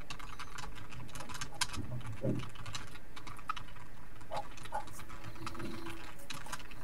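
Computer keyboard typing: a run of quick, irregular key clicks.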